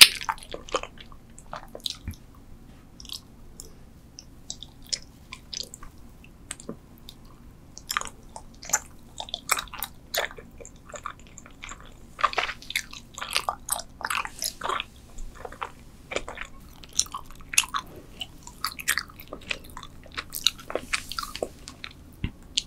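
Close-miked chewing of gummy spider candies: a run of short, sharp, wet mouth clicks, sparse for a few seconds early on and coming thick and fast through most of the second half.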